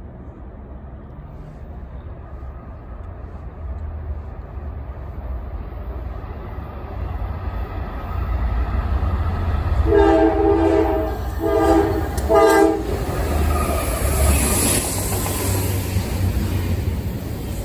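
Norfolk Southern freight train led by GE Dash 9-44CW and ES44AC diesel locomotives approaching, its low rumble growing steadily louder. About ten seconds in, the lead locomotive sounds its air horn in three blasts, the first the longest. The locomotives then pass and double-stack container cars roll by.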